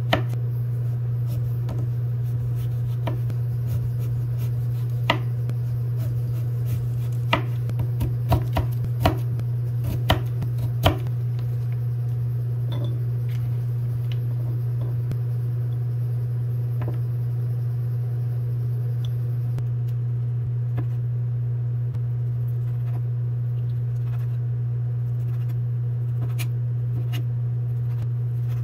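Food preparation: scattered, irregular knocks and taps of a knife on a cutting board, clustered in the first eleven seconds or so with a few lighter taps later, over a steady low hum.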